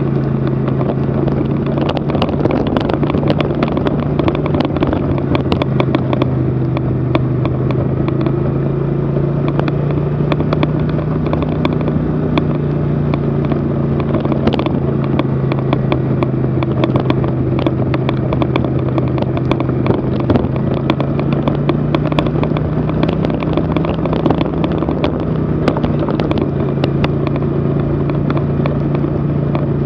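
Snowmobile engine running steadily at a low cruising speed, with a constant light clatter and rattle on top.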